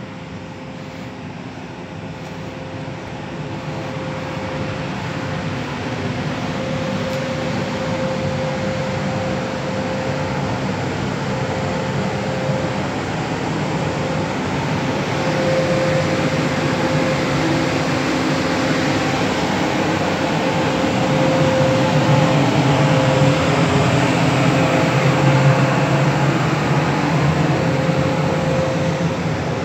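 A Newag E6ACTab electric locomotive standing with its cooling fans and auxiliary equipment running: a steady mechanical hum with a constant whine, growing louder over the first half as the microphone nears the locomotive's side.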